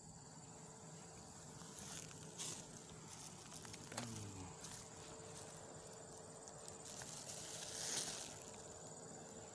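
Faint, steady insect chorus with a high-pitched buzz, with a few soft scuffs of footsteps on dirt.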